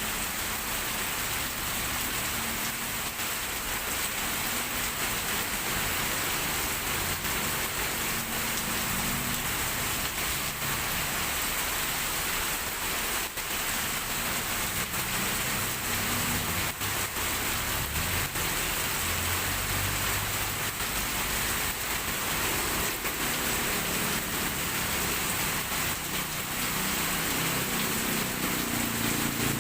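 Heavy rain falling steadily, with a low rumble coming and going beneath it. Near the end a vehicle's engine grows louder as it approaches.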